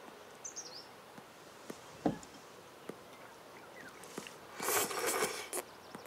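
Quiet room ambience at a breakfast table: faint bird chirps about half a second in, a few light knocks of bowls and chopsticks, and a short rustling noise lasting about a second near the end.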